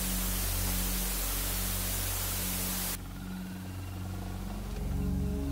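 Royal Enfield Classic 350's single-cylinder engine running on the move, under a loud steady hiss of wind on the microphone. The hiss cuts off suddenly about three seconds in, leaving the engine's low, even pulsing plainer near the end.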